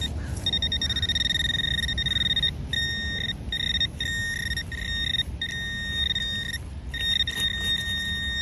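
Orange Garrett pinpointer giving a steady, high electronic beep that breaks off and resumes several times as its tip is worked through wood-chip mulch, signalling metal close to its tip.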